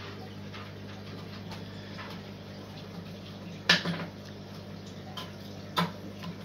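Low steady hum and faint water movement of a sumped aquarium's pump and filtration running, with a few sharp clicks, the loudest about three and a half seconds in and another near the end.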